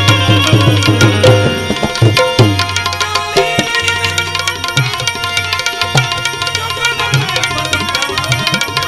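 Live Indian devotional music, instrumental only: a tabla playing fast strokes, its deep bass drum sliding down in pitch, over steady sustained tones. The bass strokes come thick at first and thin out after about two seconds.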